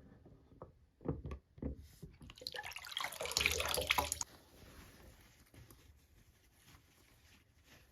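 Water in a sink: a few drips and small splashes, then about two seconds of splashing water, which cuts off sharply and leaves faint trickling.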